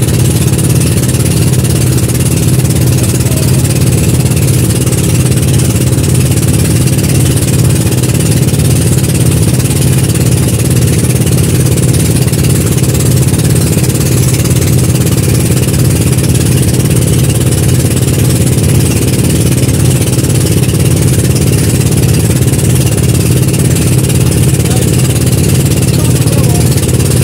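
Outrigger boat's engine running at a steady speed, loud and unchanging throughout.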